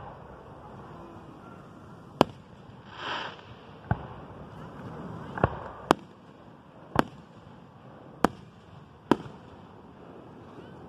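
Aerial firework shells bursting in a display: seven sharp booms, one to two seconds apart.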